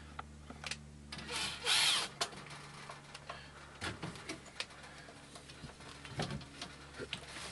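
Handling noise from an air handler's sheet-metal cabinet and coil being worked into place: scattered knocks and clicks, with a brief scrape about one and a half seconds in. A low steady hum sits under the first few seconds.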